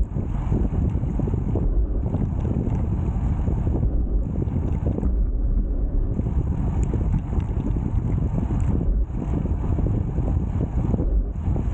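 Wind buffeting the microphone of a moving road bike, a dense low rumble throughout. A faint high hiss comes and goes every second or two.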